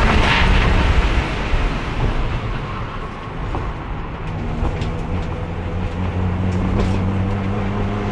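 Race car engine heard from onboard, lifting off the throttle about a second in and dropping away, with a few sharp clicks, then pulling again at low revs from about halfway, its note rising slowly. The car is held in fourth gear because its transmission has lost third and won't shift at speed.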